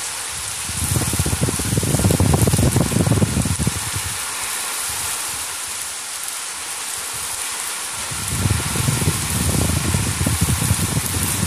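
Heavy monsoon rain falling steadily on rooftops and concrete, a dense even hiss. Irregular low rumbling swells over it from about a second in until about four seconds, and again from about eight seconds.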